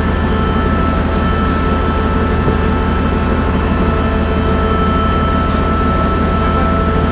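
Shipboard machinery running steadily: a loud low drone with several constant high whining tones that neither rise nor fall.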